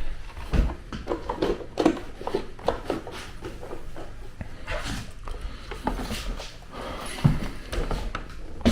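Irregular knocks, clunks and rustling of a plastic airflow hood being handled and held against a ceiling register, with a few louder knocks scattered through.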